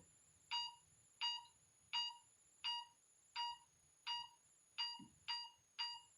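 Handheld EMF meter beeping in a steady run of short electronic beeps, about one every 0.7 seconds, coming a little faster near the end. It is registering a reading beside a hot water tank whose power is switched off at the breaker box.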